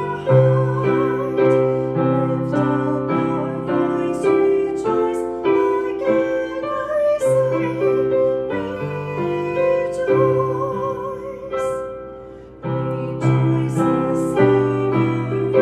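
Woman singing a hymn with vibrato, accompanied by chords on a digital piano. The music fades about twelve seconds in, then picks up again with a new chord.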